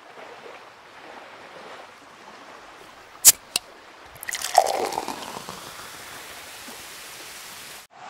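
A steady watery hiss, with two sharp clicks a little after three seconds in and a short patch of ringing knocks around four and a half seconds in.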